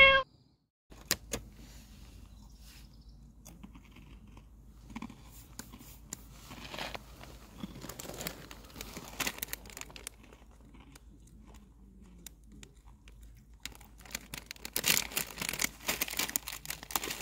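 A cat's meow cut off right at the start. Then a plastic snack wrapper rustles, crinkles and is torn open, loudest near the end, with a few sharp clicks about a second in.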